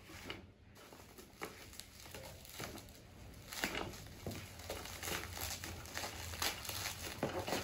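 Bubble wrap crinkling and rustling as it is handled and pulled off a packaged item by hand. The crackling grows louder and busier about halfway through.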